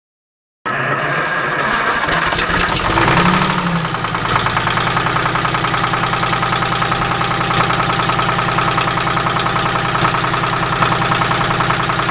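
An engine idling steadily, with a brief rise and fall in pitch about three seconds in.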